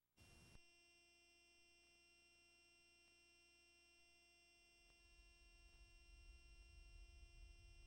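Near silence: faint steady hum and whine from VHS tape playback, after a brief burst of noise just as playback starts. A soft low rumble swells from about five seconds in.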